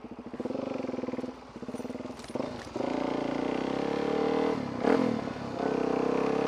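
Supermoto motorcycle engine idling with a pulsing beat, then pulling away and running steadily under way, with a short dip about five seconds in as it changes gear.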